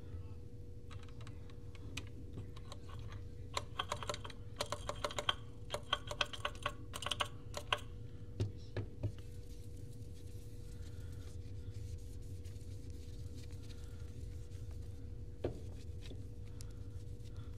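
Quick light clicks and taps of fingers on a smartphone's glass screen and frame as it is handled, in a run of about four seconds, then a single click near the end. A faint steady hum runs underneath.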